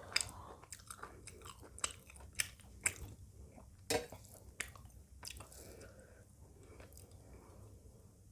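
Close-miked chewing and biting of a meal of chicken curry, rice and raw salad: wet mouth sounds with many sharp crunchy clicks, coming thick for the first five seconds or so, then fewer and softer.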